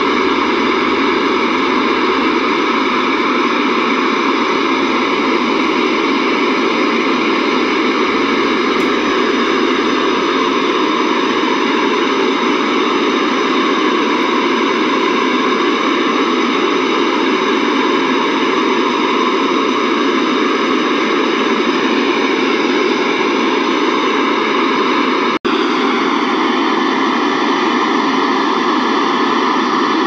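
A car sound system, with a Power Systems A2800 amplifier driving Banda Electra 3k4 4-ohm speakers, plays a steady hiss-like test noise, typical of setting the gains while tuning the system. The noise has little bass and cuts out for an instant about 25 seconds in.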